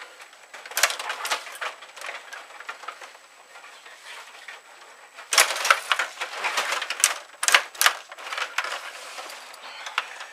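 Table hockey game in play: clicking and clattering of the plastic players spun and slid on their rods and the puck knocking about the board, with a dense flurry of clacks about five seconds in that runs for a few seconds.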